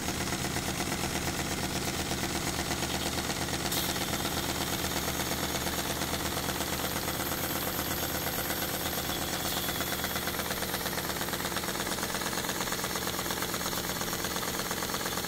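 O B Bolton triple expansion steam engine running steadily under steam, its moving parts giving a rapid, even mechanical beat. A higher hiss comes in about four seconds in and eases off around ten seconds.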